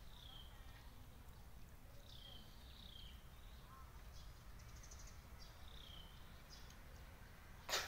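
Faint bird chirps, several short calls that each slide downward, at uneven gaps over low background noise. A single sharp click near the end is the loudest sound.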